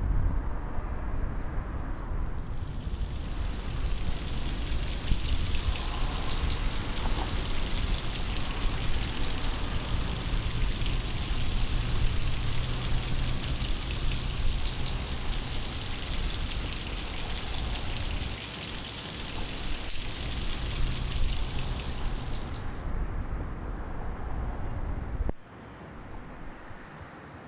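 Heavy rain: a steady, loud rushing hiss with a low rumble underneath, which cuts off suddenly near the end.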